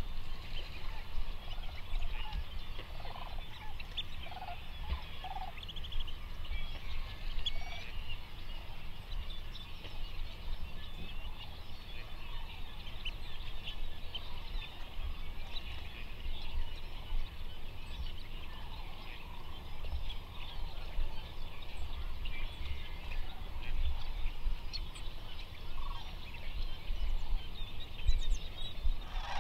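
A large flock of distant birds calling, a dense overlapping chatter of many short high calls, with a low rumble underneath.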